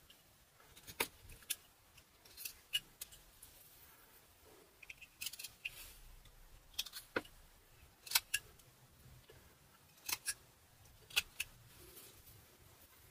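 Whittling knife slicing into a butternut wood blank. Each stroke is a short, crisp snick as a chip comes away, about a dozen cuts at irregular intervals.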